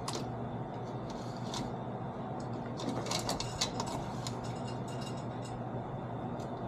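Light metallic clicks and rattles from handling a chainsaw chain clamped in a saw chain vise, most of them about three to four seconds in, over a steady low hum.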